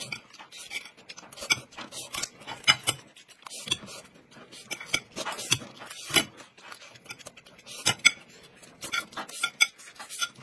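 A metal spoon clinking and scraping on a ceramic plate as egg fried rice is scooped up, in a string of short irregular clicks, with crunching bites of a raw green radish in between.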